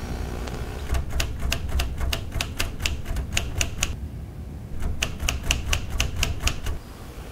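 Typewriter keys clacking in two quick runs of about six strokes a second: a longer run from about a second in, a short pause, then a shorter run. A steady low rumble lies underneath.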